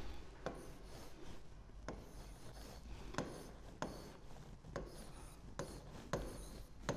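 Pen stylus tapping and scraping on the glass of an interactive display board as numbers are written, with a faint series of short clicks about once a second.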